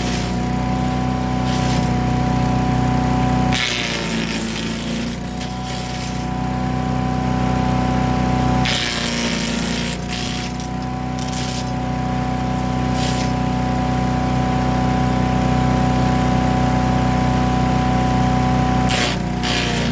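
Predator gas-engine chipper/shredder running steadily, with two long stretches of loud crunching and rattling about four and nine seconds in as branches are fed through, the engine sagging under the load each time.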